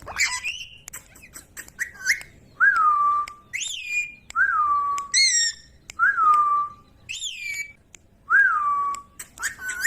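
Ringneck parrot whistling: a string of repeated short whistles, each rising briefly and then falling to a held note, alternating with higher whistled calls and a few sharp clicks near the start.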